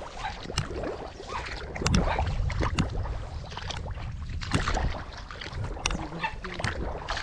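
Shallow water splashing and sloshing irregularly as people wade through a flooded paddy field chasing fish.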